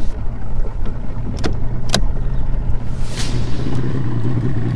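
Bass boat's outboard motor running at low speed, a steady low hum under wind buffeting the microphone and water noise. Two sharp clicks come about one and a half and two seconds in.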